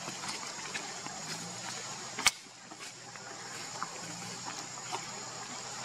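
Outdoor ambience with a steady high-pitched drone and faint scattered rustles and ticks, as of small movements in dry leaves; one sharp click stands out a little over two seconds in.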